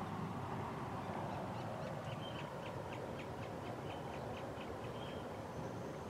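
20-inch box fan in the cooler running, a steady rush of air through the honeycomb pad. About two to five seconds in, a quick run of about ten faint high chirps sounds over it.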